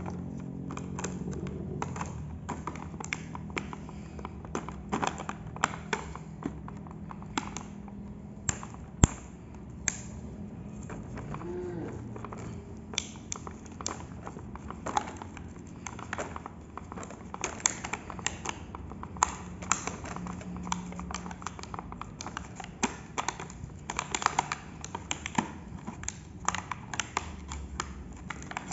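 Plastic packaging of toy cars being torn and pulled open by hand: irregular crinkling with many sharp clicks and crackles.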